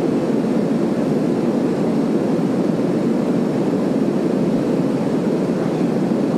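Steady drone of an airliner's engines and airflow heard inside the cabin, an even noise with no change.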